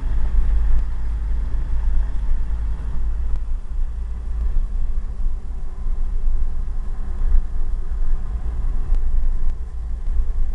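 Vehicle engine running with a steady low rumble, heard from inside the cab while driving slowly.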